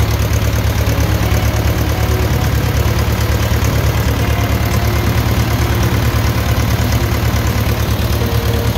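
Farm tractor engine running close up, a steady, fast, low putter that holds an even speed throughout.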